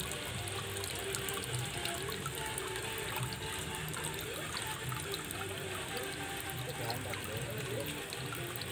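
Water trickling and splashing steadily down a small rock-garden waterfall into a pond, with music playing in the background.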